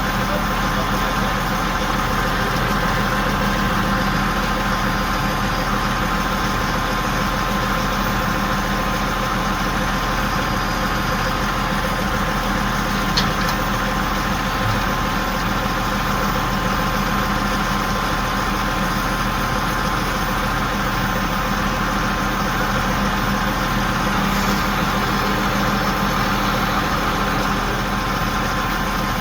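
The crane truck's diesel engine runs steadily at a constant speed, with a single faint click about thirteen seconds in.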